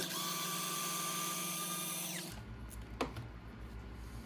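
Cordless power driver spinning steadily, backing out a screw from the RC car chassis, then winding down and stopping a little over two seconds in. A single click follows about a second later.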